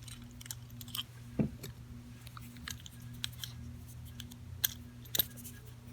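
Small metallic clicks and taps from a padlock and tools being handled as the lock is taken apart, under a steady low hum.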